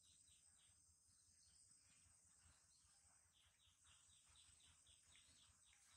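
Near silence, with faint short high chirps that fall in pitch, repeating several times a second, over a faint steady hiss.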